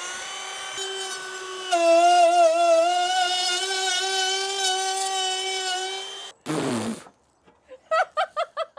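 A compact trim router with a flush-trim bit spins up to a high, steady whine. About two seconds in it gets much louder, its pitch sagging slightly as the bit bites into the overhanging edge of an OSB sheet and trims it flush, and it cuts off about six seconds in. Near the end there is a quick run of short voiced pulses.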